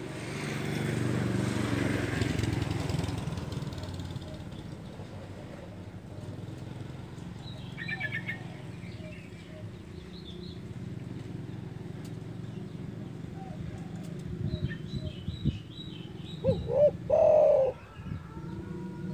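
Spotted dove (derkuku) cooing: a few loud, low coos near the end, with faint chirps of small birds earlier, over a steady low background rumble.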